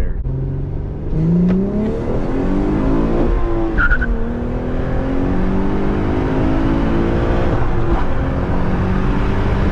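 Acura TL's V6 with high-flow catalytic converters and a J-pipe exhaust revving up hard under acceleration. The pitch climbs, dips briefly about three and a half seconds in at a gear change, then climbs again.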